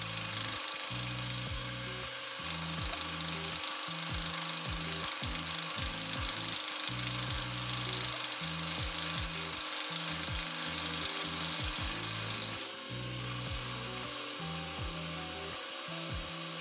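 A homemade countersink cutting steel in a small milling machine, a steady grinding hiss of the cut, under background music with a changing bass line.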